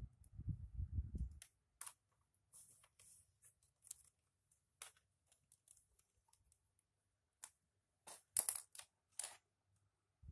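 Plastic clicks and taps from an Acer Aspire laptop's screen bezel being pressed into place around the display, with a cluster of louder, sharper clicks about eight seconds in. A low rumble of handling in the first second or so.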